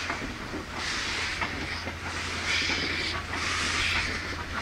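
A Beyer-Garratt steam locomotive working a train, its exhaust chuffing in slow, regular hissing beats about once a second, over a steady low rumble.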